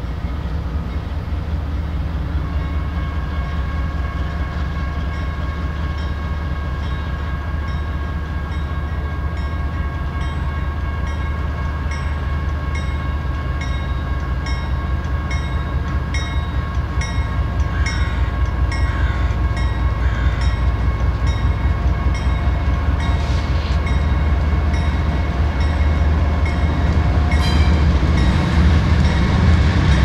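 BNSF freight train's diesel locomotives approaching and passing at speed, their engines running with a steady low rumble and a few steady whining tones, growing louder toward the end. A regular light ticking runs along with it.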